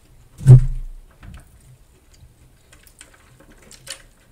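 A single loud, low thump about half a second in, then faint scattered clicks and mouth sounds of chewing and of sipping from a paper drink cup near the end.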